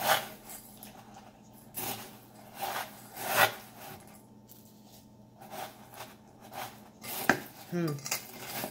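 Wooden spoon stirring Rice Krispies cereal and sticky marshmallow fluff in a metal mixing bowl, scraping and knocking against the bowl's sides in separate strokes.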